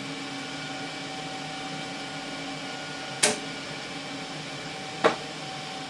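Steady hum and whir of a running homebrew 3-500Z valve linear amplifier and its bench equipment, with two sharp clicks, about three and five seconds in, from switches or equipment being handled on the bench.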